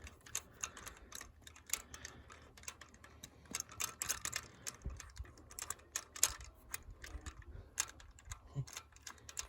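Hand ratchet on a socket extension clicking irregularly as a spark plug is spun loose.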